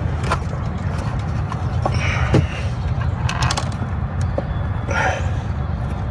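Scattered clicks and scrapes of hand tools on metal under a truck's hood, working at a PCV valve, over a steady low rumble.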